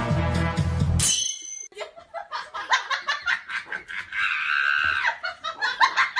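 Music cuts off about a second in. Then a person laughs in quick short bursts, with a longer high-pitched stretch near the end.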